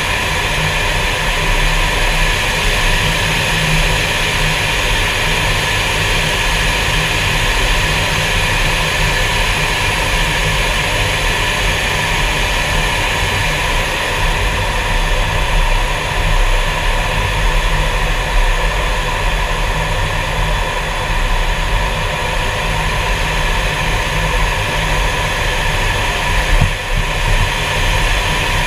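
Fighter jet's engine running steadily while taxiing, a constant loud rumble with a steady whine, heard from inside the closed cockpit.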